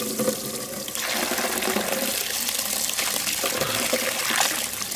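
A stream of water pouring onto a toy truck and splashing into a muddy puddle as the truck is pushed through it: a steady rush of water that grows a little louder about a second in.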